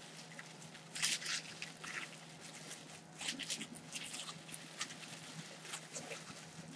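Plastic bubble wrap rustling and crinkling in irregular short bursts as a wrapped item is handled and unwrapped.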